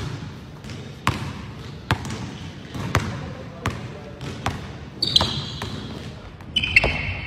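Basketball dribbled on a hardwood gym floor, bouncing about once a second, with two short high sneaker squeaks, one about five seconds in and one near the end.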